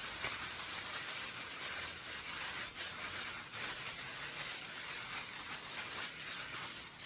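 Plastic bag crinkling and rustling in quick irregular bursts as hands squeeze and knead seasoned chicken strips inside it, mixing in the dry spices.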